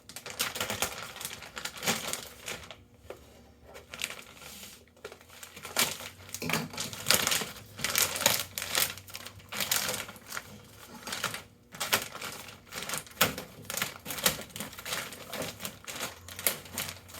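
Cardboard and plastic packaging rustling and crinkling, with many irregular clicks and knocks, as a boxed control panel is pulled out of its packaging.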